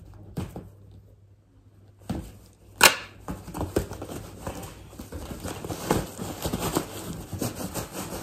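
Cloth parcel wrapping being cut open with scissors and pulled apart, with one sharp, loud noise about three seconds in. After that comes steady rustling and crackling as hands work the fabric open and rummage inside.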